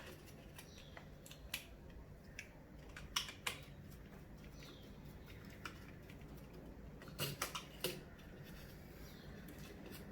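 Faint, irregular clicks and small scrapes of a hand screwdriver tightening the terminal screw on a wall switch after a live wire has been inserted, in short clusters about a second and a half in, around three seconds in, and near the end.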